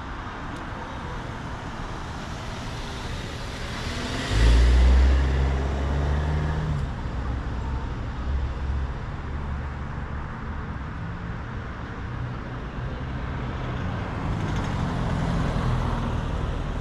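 Street traffic: about four seconds in, a vehicle passes close with a loud, low engine rumble that fades over the next few seconds. Near the end a car approaches and drives by with engine and tyre noise.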